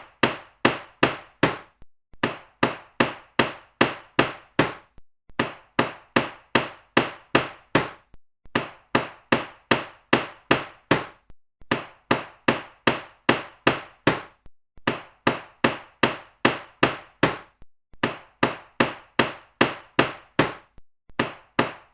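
Hammer blows struck in quick succession, about four a second, in runs broken by brief pauses. Each strike is a sharp knock that dies away quickly.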